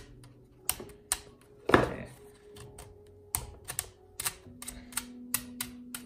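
Fingers clicking and tapping on a Soocas H3S hair dryer's metal rear grille and plastic housing: about a dozen sharp, irregular clicks, the loudest about two seconds in and coming faster near the end. The sound of each click tells the metal parts from the plastic ones.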